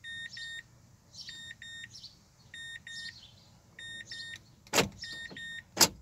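A 2012 Mazda5's warning chime beeping in quick pairs, about once a second, with the driver door open and the key in the ignition. Near the end come two loud clunks a second apart: the power door locks cycling to confirm that the remote has been programmed.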